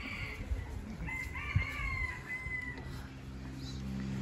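A rooster crowing: a call ends just as the sound begins, then one long crow about a second in that falls slightly at its end.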